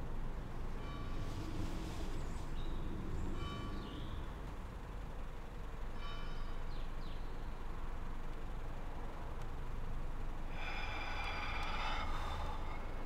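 Sparse film-score music: a few short held notes in the first six seconds, then a fuller chord about ten and a half seconds in, over a low steady rumble.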